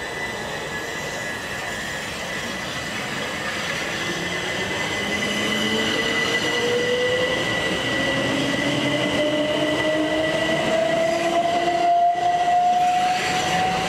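Class 375 Electrostar electric multiple unit running on third-rail power, its traction motors whining and rising slowly in pitch as it gathers speed, over steady rail and wheel noise with a thin high steady tone.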